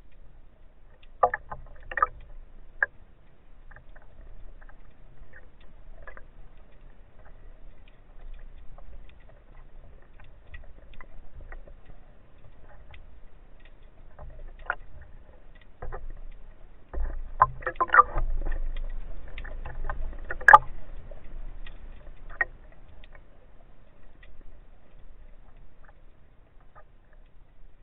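Underwater sound picked up by a camera in a waterproof housing: scattered clicks and taps over a low rumble, with a burst of louder knocks and rumble from about 17 to 21 seconds in, ending in one sharp crack.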